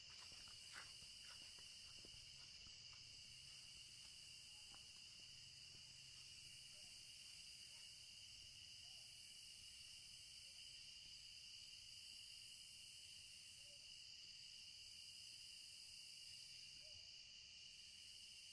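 Faint, steady chorus of insects trilling continuously in a field.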